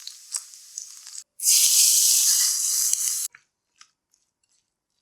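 Food sizzling in hot oil: a loud, steady hiss for about two seconds that cuts off abruptly, with faint crackles and ticks before and after it.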